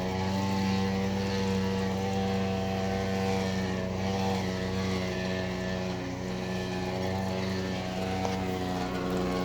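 Electrolux washing machine giving off a steady, continuous hum with a buzzing tone while its drum is not turning.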